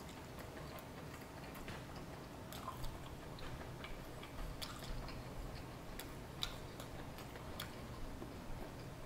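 A person chewing a mouthful of stir-fried noodles, with scattered sharp clicks of a metal fork against a ceramic plate.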